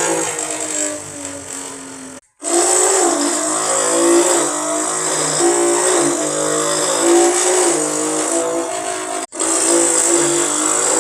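A person imitating a Porsche engine with their mouth: a buzzing vocal engine note that revs up and down in pitch like gear changes, breaking off twice for a moment.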